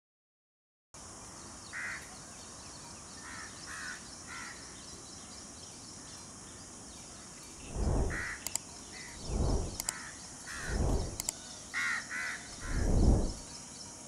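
Bird calls outdoors: scattered short calls over a steady high hiss, with four low muffled whooshes in the second half, about a second and a half apart, the last the loudest.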